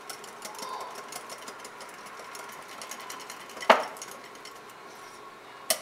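Wire whisk beating cake batter in a ceramic coffee mug: rapid light ticking of the wires against the mug's sides, with one louder knock about three and a half seconds in and sharper taps near the end.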